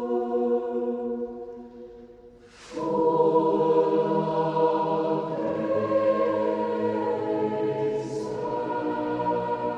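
A robed mixed choir sings a slow hymn in sustained chords; the captioned words are 'full of grace' and 'and truth'. About two seconds in, the chord fades away, and the choir then comes back in louder on the next phrase.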